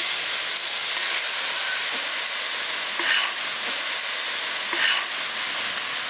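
Boneless parrot fish pieces with onion and tomato sizzling in coconut oil on a large flat griddle, just after the spice masala powder goes in. A metal spatula scrapes and stirs through it twice, about three seconds in and again near five seconds.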